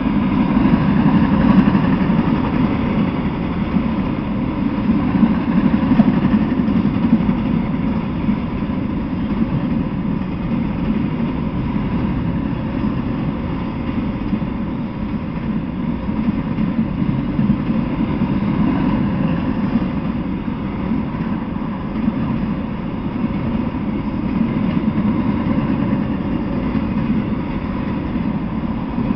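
Freight train of autorack cars rolling past: a steady rumble of steel wheels on the rails.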